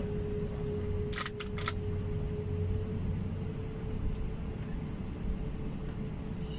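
Steady low hum of an airliner cabin's ventilation while the plane is still stationary, with a faint steady tone that fades out about halfway. A few short, hissy clicks come about a second in.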